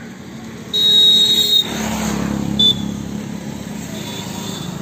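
A road vehicle passing close by with its horn sounding. The first horn note is held for nearly a second, a short beep follows about two and a half seconds in, and a steady engine hum continues after the rushing sound of the pass.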